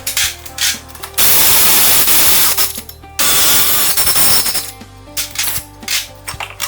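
Two bursts of loud, steady air hissing, the first about two seconds long and the second about a second and a half, with light clicks and clatter of tools before and after.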